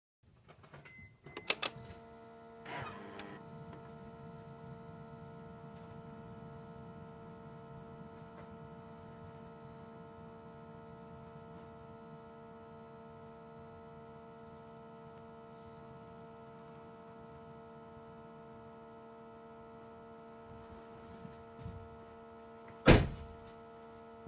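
A steady machine hum at a fixed pitch, starting with a few clicks about a second and a half in. One loud knock comes near the end.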